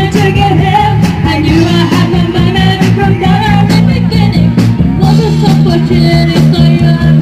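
A band playing a rock-style song, with drums keeping a steady beat of about two strokes a second under a bass line and a wavering lead melody.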